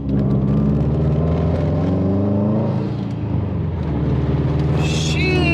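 Subaru's flat-four engine running under way, its pitch rising and falling twice as the throttle is worked.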